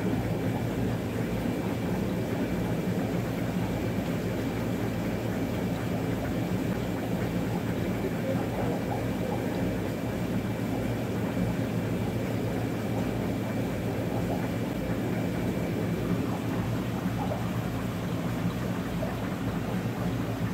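Steady low mechanical hum under a constant hiss, with a faint thin high whine that stops about sixteen seconds in.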